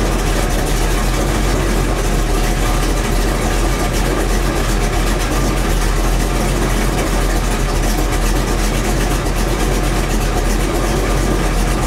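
Car engine idling steadily with the battery disconnected. It keeps running on the alternator alone, a sign that the alternator is charging.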